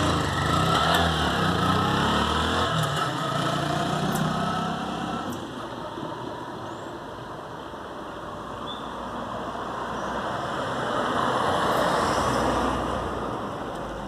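A motor vehicle driving past on the street, loudest in the first few seconds with its engine note dropping as it goes by, then fading; a second swell of road noise from another passing vehicle rises and falls near the end.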